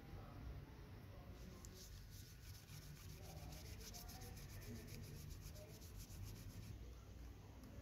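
Cloth buffing polishing compound off a clear plastic model-car windshield: faint, quick back-and-forth rubbing strokes, several a second, starting about a second and a half in and stopping near the end.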